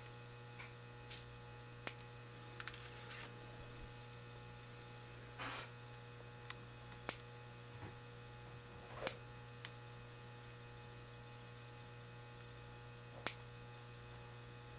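Steady electrical hum, broken by a handful of sharp clicks a few seconds apart as a small hand tool trims the plugs set into the drill holes of a rimless eyeglass lens.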